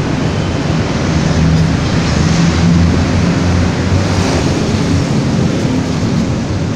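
Steady road traffic noise, a low rumble of engines with wind noise on the microphone.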